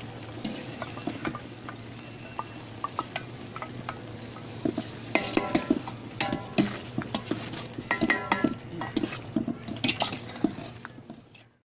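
A long steel ladle stirring and scraping thick tomato masala in a large aluminium pot, with repeated metal-on-pot clinks and scrapes over a frying sizzle. The clinks come faster and louder about halfway through, some of them ringing.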